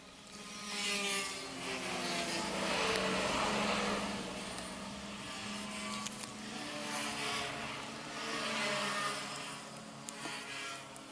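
Motor vehicles passing, their engine sound swelling and fading twice with pitch gliding up and down, over a steady low hum, with a sharp click about six seconds in.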